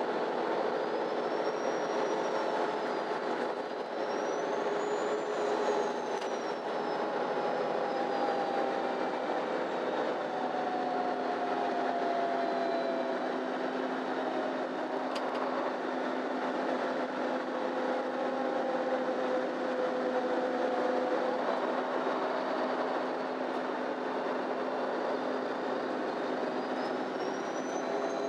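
Cabin sound of a MAN Lion's City Ü intercity bus on the move: the drivetrain runs steadily under a constant rumble, with whining tones that glide slowly up and down in pitch as the bus speeds up and slows.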